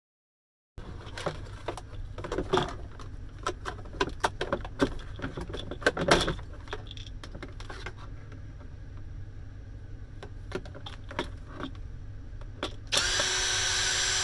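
Clicks and clanks of tools and metal parts being handled while the shredder is taken apart. Near the end, a power drill runs steadily for about a second and a half.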